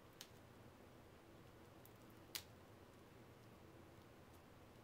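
Near silence with a few faint, sharp clicks. The loudest comes about two and a half seconds in.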